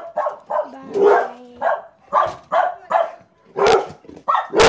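A dog barking over and over, about two to three barks a second, with the loudest barks near the end.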